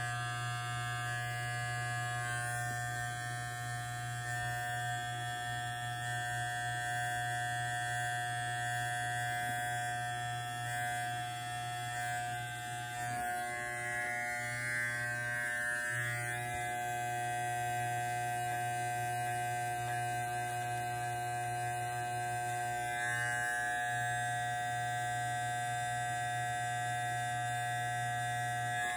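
Corded electric hair clipper buzzing steadily while it trims the beard line and cheek. The buzz wavers briefly a few times partway through.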